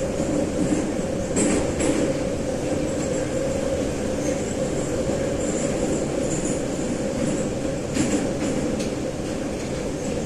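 Metro train of the 81-717/714 'numbered' type running between stations: a steady rumble of wheels and running gear, with a couple of short knocks from rail joints about a second and a half in and again near eight seconds.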